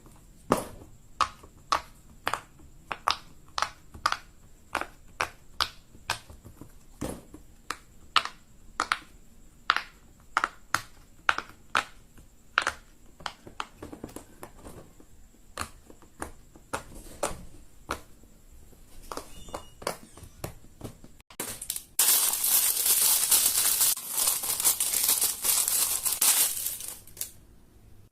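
Fidget toys being clicked and popped by hand, a sharp pop two or three times a second. Then, for about five seconds near the end, a loud crinkling noise.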